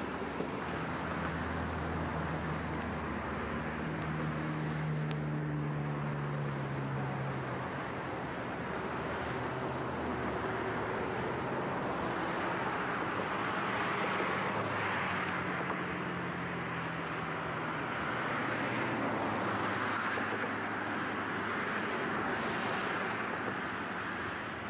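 Adelaide 'Red Hen' diesel railcars running through the rail yard. A low engine drone comes first, then a steady rushing noise that swells and fades.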